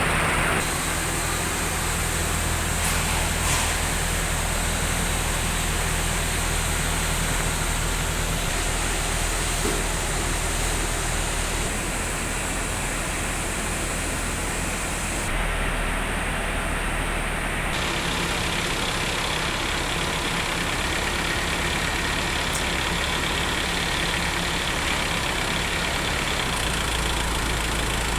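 Delivery truck's engine running steadily at idle, its low hum shifting abruptly several times.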